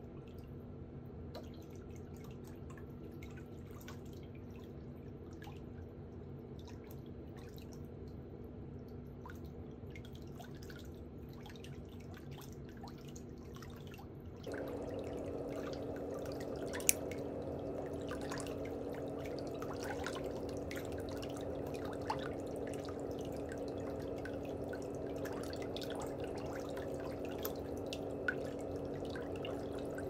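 Steady trickling water with many small drips, louder from about halfway. In the second half a few sharp snips of toenail nippers cut a big toenail.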